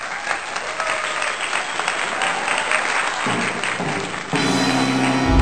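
A crowd applauding, then background music coming in during the last second or two.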